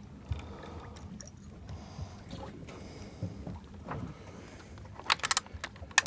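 Low steady hum of a fishing boat's engine under faint handling clicks. Near the end, a few sharp clicks from a big-game reel's ratchet as line begins to pay out.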